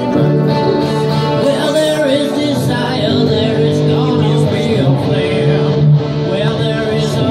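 Live band music: a singer over electric guitar, with steady sustained low notes underneath.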